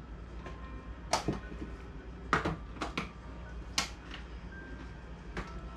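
Small makeup items and plastic cases being handled and set down: a series of sharp clicks and knocks, about seven in all, irregularly spaced over a low steady hum.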